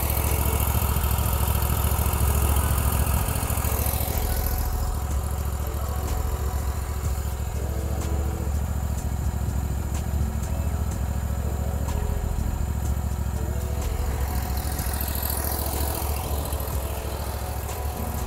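Scag Turf Tiger II zero-turn mower's V-twin engine running steadily while the mower stands still.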